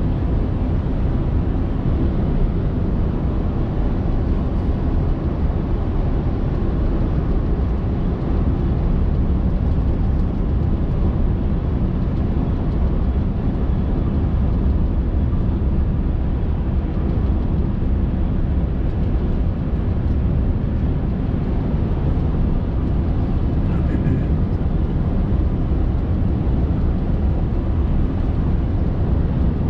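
Steady in-cab drone of a Scania R580's V8 diesel engine and its tyres on the road, heard from the driver's seat while the truck cruises at an even speed.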